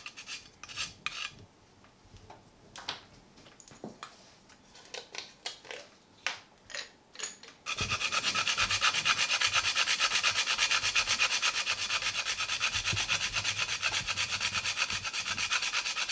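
A whole nutmeg being grated on a small metal hand grater: a few scattered scrapes at first, then from about halfway in, fast, steady rasping strokes.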